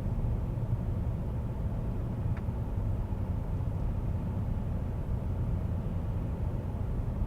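Steady road noise inside a moving car's cabin: a low rumble from knobby tyres on the pavement, with wind noise over the car.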